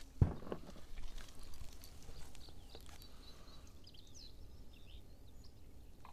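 A single sharp thump just after the start, then light handling clicks, and a few short high bird chirps about four seconds in, over quiet outdoor background.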